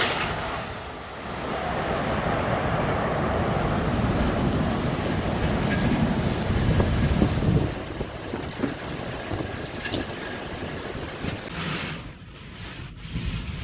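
Storm wind and rain in a violent windstorm, with heavy low rumble of wind buffeting the microphone. It is loudest for the first seven or eight seconds, then eases, and drops off suddenly near the end.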